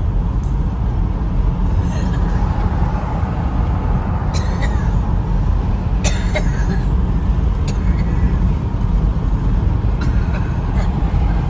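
Steady low rumble of a car driving, heard from inside the cabin, with a few light clicks.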